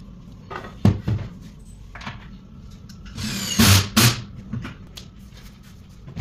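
Flat-pack cabinet panels and rails knocking and scraping as the carcass is put together: two knocks about a second in, a short rising scrape with heavy clatter a little past halfway, and one more knock at the end.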